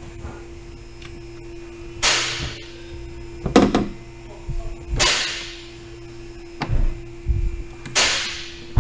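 Plastic cowl trim panel and its rubber seal being pulled loose from a car's engine bay: three sharp rasping pulls about three seconds apart, each fading within about half a second, with a quick cluster of clicks between the first two as the clips let go.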